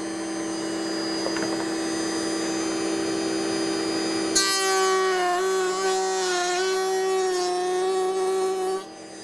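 Table-mounted router running at speed with a drawer lock bit. From about four seconds in, a board fed flat past the bit with a push block is being cut, so the pitch dips and wavers under load with a loud cutting noise. The cutting stops shortly before the end while the router keeps running.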